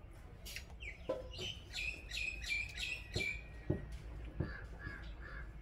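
A bird calling in a quick run of short high notes for about two seconds, then a few weaker calls near the end, with a few sharp clicks in between.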